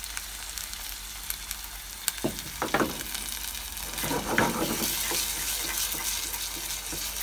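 Tomato and onion stew base sizzling in plenty of oil in a pot, with a wooden spatula stirring and scraping through it several times, more strongly from about four seconds in.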